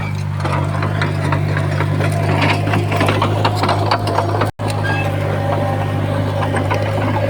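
Komatsu bulldozer's diesel engine running steadily under load, with scattered clanks and knocks from its tracks and from the soil and stone it is pushing. The sound drops out for an instant just past halfway, then carries on the same.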